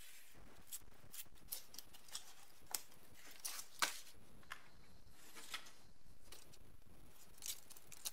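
Scissors snipping through paper templates, with paper crinkling between the cuts: a run of irregular short snips, the sharpest a little before four seconds in.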